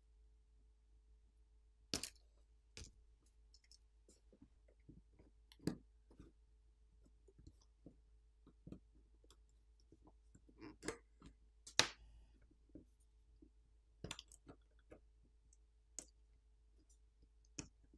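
Irregular light clicks and taps from a plastic spudger prying flex-cable connectors off a smartphone's circuit boards and from the phone's internal parts being handled, about a dozen clicks spread out with pauses between them.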